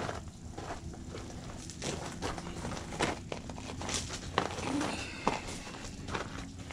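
Scattered clicks and crinkling of a plastic package being handled and cut open with a knife: a tube of Loctite being freed from its packaging.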